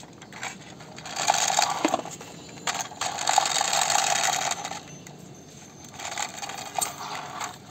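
Plastic toy army helicopter pushed along concrete, its wheels driving the gears that spin the rotor: three bursts of rattling, clicking plastic whirr as it is rolled back and forth.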